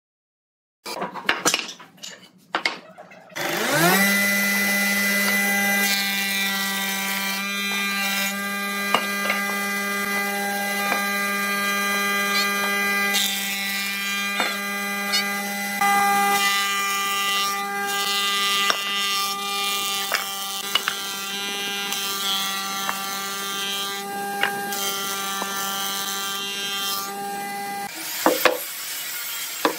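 A stationary woodworking thickness planer spins up with a rising whine, then runs with a steady hum, growing louder in passages as wood feeds through the cutterhead. It stops near the end, followed by a few knocks as wooden blocks are set down on a table.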